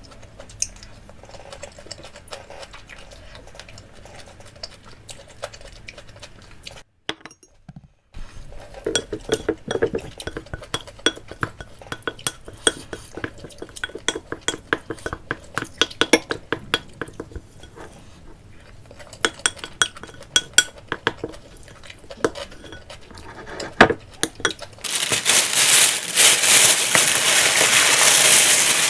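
A spoon clinking and scraping against a bowl of bibimbap as it is stirred and eaten: many small sharp clicks, with a brief cutout about seven seconds in. For the last few seconds a loud, even rustling hiss takes over.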